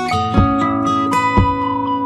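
Background music with plucked and strummed guitar.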